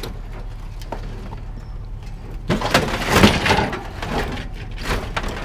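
Metal air-conditioner condenser unit scraping and clattering as it is pushed onto a truck bed, loudest a little past halfway, with a few lighter knocks after.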